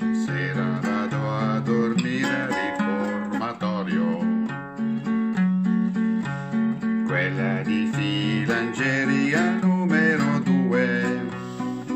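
Acoustic guitar strummed and picked in a steady chord accompaniment, with a man's voice singing a melody over it in stretches.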